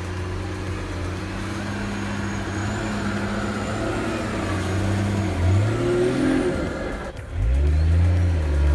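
Nissan Patrol GR 4x4's engine running and revving. It rises about five and a half seconds in, dips briefly, then revs louder near the end.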